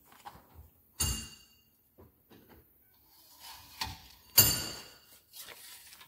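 Aluminium screen door frame clanking as it is handled on the workbench: a sharp metallic clank about a second in that rings briefly, a few light clicks, and a louder clank just after four seconds.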